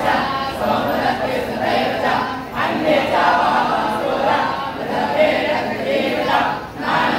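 A group of voices singing together in a continuous chant, many voices blended rather than one clear singer.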